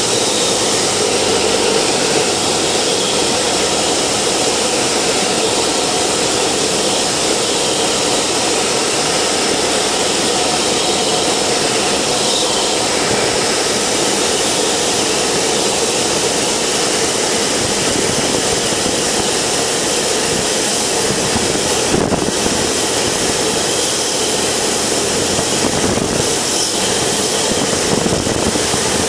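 Cessna 172's piston engine and propeller running steadily, with airflow noise, heard inside the cabin during the landing approach.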